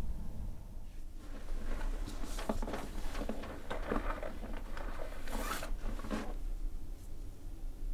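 Hands handling cloth at close range: a busy run of rustling, small clicks and rasping strokes that starts about a second in and stops near the six-second mark, over a steady low hum.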